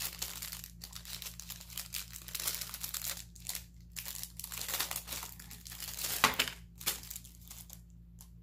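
A small clear plastic bag crinkling as it is handled and opened by hand, in irregular rustles with a sharper crackle about six seconds in.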